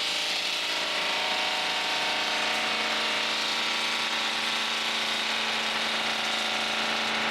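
Gas-powered concrete saw running at a steady pitch while cutting through a concrete curb.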